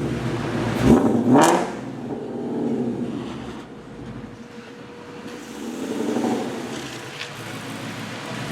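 Supercharged V8 of a Clive Sutton CS800 Ford Mustang GT, heard from inside the car. It revs up sharply about a second in, then eases back to a lower, steadier note, and swells again briefly around six seconds in.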